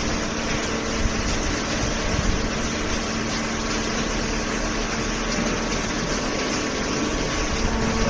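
Hydraulic baler and its feed conveyor running: a steady mechanical drone with a constant low hum. The hum grows a little stronger near the end.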